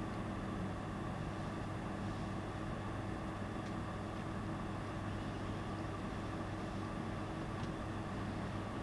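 Steady low hum and hiss of room noise with a couple of faint clicks.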